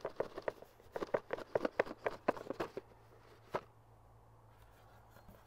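Rigid cardboard retail box being opened by hand: a quick run of taps, scrapes and rustles as the lid is worked off and the inner box handled, then one last sharp tap about three and a half seconds in.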